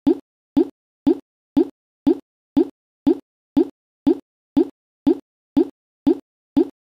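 A short, low pop sound effect repeated at an exact, even beat of about two a second, with dead silence between pops: a looped plop.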